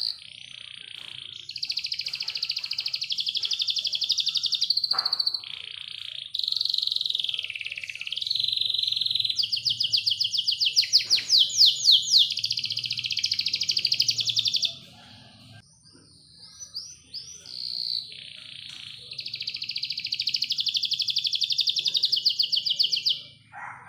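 Domestic canary singing long, fast trilled rolls. Past the middle the song breaks for a few seconds into scattered short notes, then goes into another long roll.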